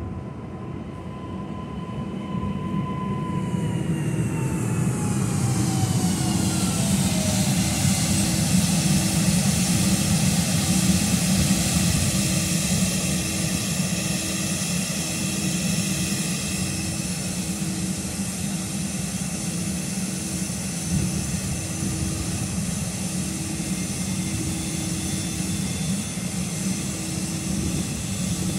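Electric multiple unit pulling in and braking to a stop, its motor whine falling in pitch over the first several seconds. It then stands at the platform with a steady high-pitched electrical whine and a low tone pulsing about twice a second.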